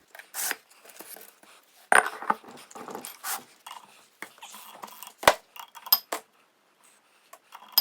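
Irregular clinks and clanks of metal engine parts and tools being handled as the connecting rods are taken off a VW Type 1 1600 crankshaft, with one sharp metallic knock about five seconds in and short ringing clinks near the end.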